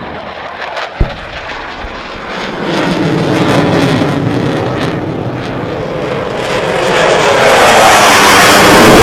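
Fighter jet flying past: a broad rush of jet noise builds from about two and a half seconds in and grows louder still near the end. A single sharp knock sounds about a second in.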